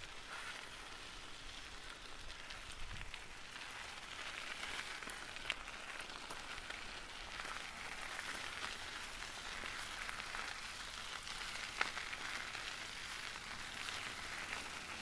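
Faint, steady crackling hiss like static, with a sharp click about five and a half seconds in and another a little before twelve seconds.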